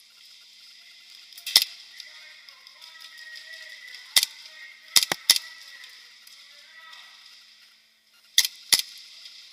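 Airsoft guns firing single shots: seven sharp cracks at irregular intervals, including a quick run of three about five seconds in and a pair near the end.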